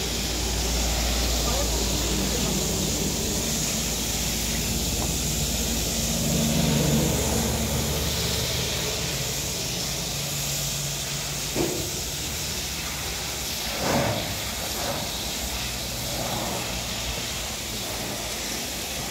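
Water spraying from a hose onto a pickup truck and the wet ground, a steady hiss, over a low steady hum. A couple of short knocks come about twelve and fourteen seconds in.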